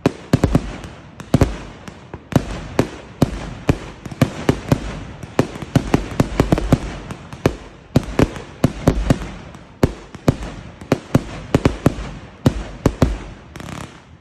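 Fireworks going off in quick succession: a dense, irregular string of sharp bangs, several a second, with crackling between them.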